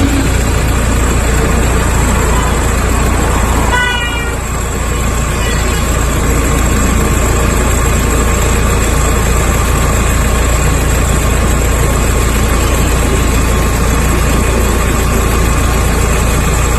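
Steady vehicle-like running noise with a short horn toot about four seconds in.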